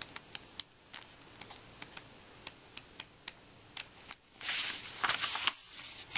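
Pages of a paperback picture book being handled and turned: a run of small, irregular paper ticks and crinkles, with a louder papery rustle about four and a half seconds in as a page is turned.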